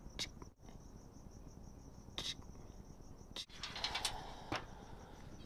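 Crickets chirping in a steady, evenly pulsing high trill. Over it come a couple of short clicks, and about two-thirds through the knocks and rustle of a motorcycle helmet being picked up and handled, the loudest part.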